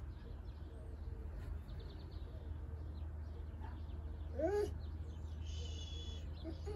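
Small birds chirping, with a stretch of high trilling about five and a half seconds in, over a steady low hum. About four and a half seconds in, a brief whine from an animal rises and falls in pitch; it is the loudest sound.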